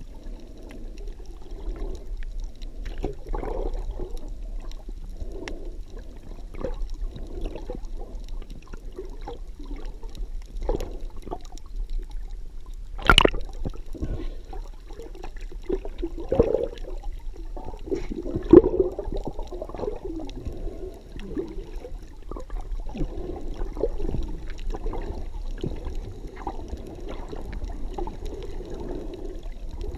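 Water moving and gurgling, heard muffled through a camera held just under the surface, swelling and fading with the swimmer's motion. Scattered small clicks run through it, with a sharp click about 13 seconds in and another loud one near 18 seconds.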